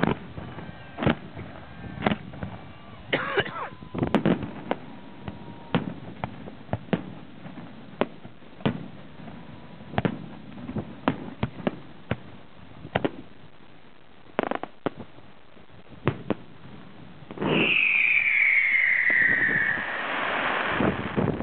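Aerial fireworks going off in a string of sharp bangs and pops. Near the end comes a loud whistle lasting about two seconds that falls steadily in pitch, followed by a hissing crackle.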